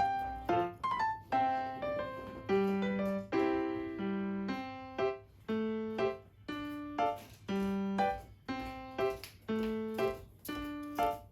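Background music: a gentle piano melody, notes struck one after another and left to die away.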